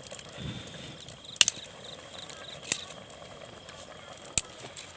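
Three sharp clicks or knocks, each a second or more apart, over a thin steady high tone and faint background voices.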